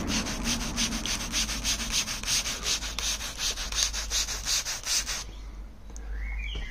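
Hand trigger spray bottle pumped rapidly, about five quick squirts of water a second, each a short hiss, misting onto a sealed paint panel; the spraying stops about five seconds in. A bird chirps faintly near the end.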